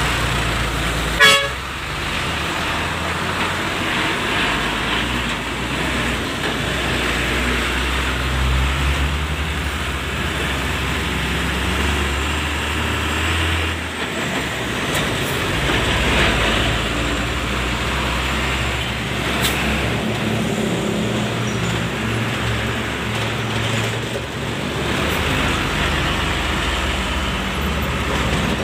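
Heavy cargo truck's engine running with road noise, heard from the open chassis right behind the cab; the engine note shifts up and down several times as the truck changes speed. A vehicle horn toots briefly about a second in.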